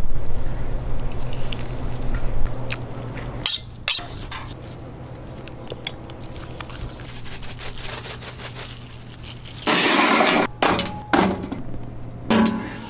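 Lump charcoal clinking and rattling in a smoker's firebox, with a loud rattling burst about ten seconds in and a few shorter ones after it, over a steady low hum.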